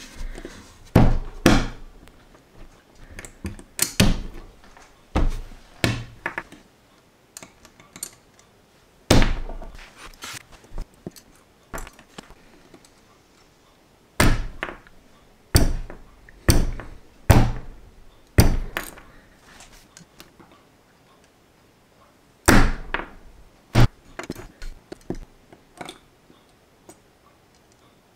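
Irregular sharp clicks and knocks of plastic LEGO pieces handled with steel tweezers on a hard tabletop: pieces set down, tapped and pressed together. There are about two dozen, scattered unevenly with short quiet gaps between them.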